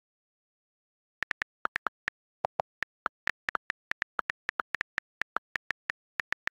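iPad on-screen keyboard key clicks from typing: a quick, uneven run of about thirty short clicks starting about a second in, two of them lower-pitched.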